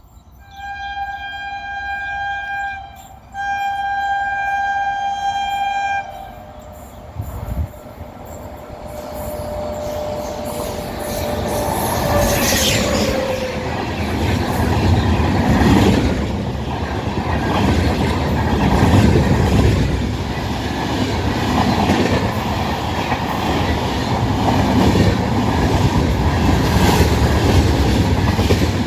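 WAP-7 electric locomotive's horn sounding two long blasts, then the train approaching and running past at high speed. Its loud rolling rumble carries the repeated clatter of wheels over rail joints.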